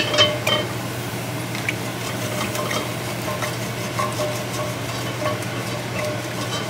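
Wooden spatula scraping the sides and bottom of an enamelled cast-iron pot and stirring a red-wine pan sauce that sizzles steadily on the heat: deglazing, working the browned bits off the pan.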